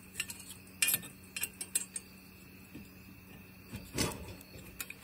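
Small hand wrench and nut driver clinking against a steel bolt, nut and galvanized steel bracket as the nut is tightened: several sharp metal clicks in the first two seconds, then a duller knock about four seconds in.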